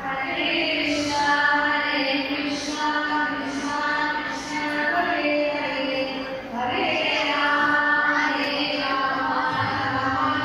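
Devotional chanting: voices singing a melodic chant over musical accompaniment and a steady low note, with a brief dip about six and a half seconds in.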